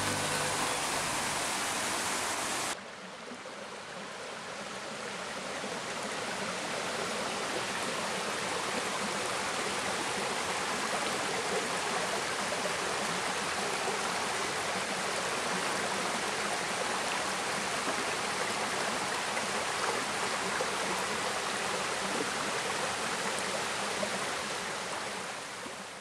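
A waterfall's steady rush of water splashing onto rocks, cut short about three seconds in by a quieter, steady flow of water running over mossy rocks, which fades out at the end.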